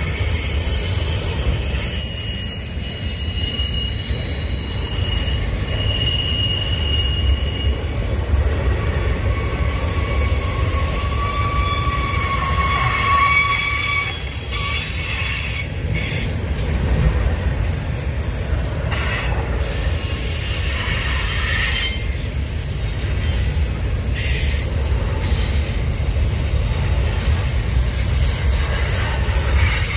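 Double-stack intermodal well cars of a freight train rolling past with a steady low rumble. High-pitched steel wheel squeal comes and goes through the first half, and a few short sharp clanks follow in the second half.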